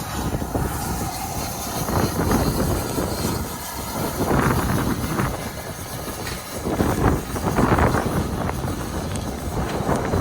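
Heritage railway train on the move: a steady rumble with rushing surges of noise every couple of seconds.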